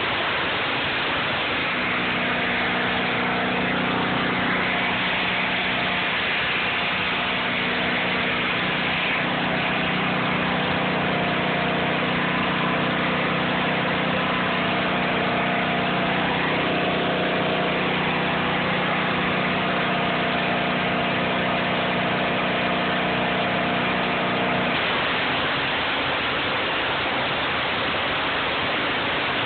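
Pressure washer jet hissing steadily against concrete. An engine hum with a steady pitch joins the hiss about two seconds in and cuts off a few seconds before the end.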